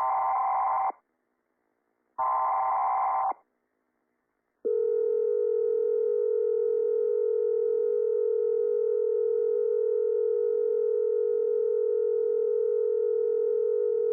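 Emergency Alert System header data: two buzzy bursts of about a second each, a second apart, then a steady alert tone with overtones that begins about four and a half seconds in and holds for about ten seconds.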